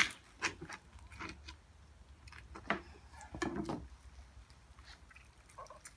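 Boning knife working along the bones of a raw beef short loin while the meat is pulled away by hand: scattered, irregular soft clicks and scrapes, the sharpest one right at the start.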